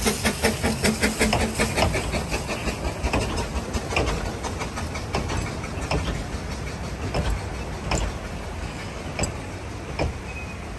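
Narrow-gauge steam train moving away: the locomotive's quick, regular exhaust beats at first, then the carriage wheels clicking over rail joints, the whole sound fading as the train draws off.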